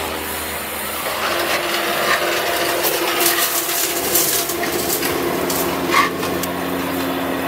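Concrete mixing machinery running: a steady motor hum with irregular scraping and rattling, busiest through the middle.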